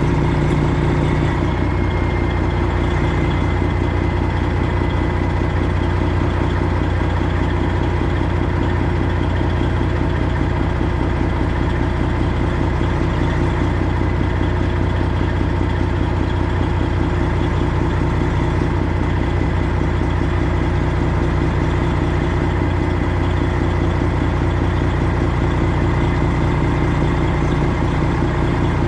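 Semi truck's diesel engine running steadily at low revs, with a thin steady whine over it.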